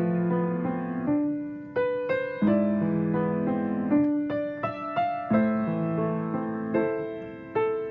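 Solo piano playing a slow elegy: chords and melody notes struck roughly every second, each ringing out and dying away before the next.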